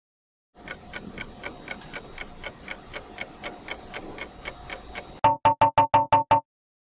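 Quiz countdown timer sound effect: steady clock-like ticking, about four ticks a second, ending in a quick run of loud beeps as the time runs out.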